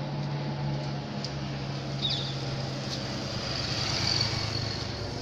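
An engine running with a steady low drone that eases off slightly near the end.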